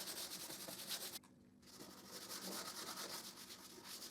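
Wax being rubbed along the wooden sides of a homemade jigsaw table in quick back-and-forth strokes, a faint scraping that stops briefly just after the first second. The wax is there to make the crosscut sled slide.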